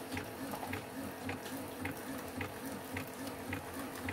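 Keurig single-serve coffee maker brewing a cup: its pump buzzes in an even pulse a little under twice a second.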